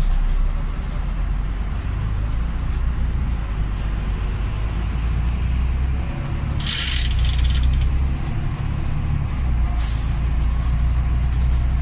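Steady engine and road rumble inside a moving bus. Two short hisses rise over it, one about seven seconds in and one near ten seconds.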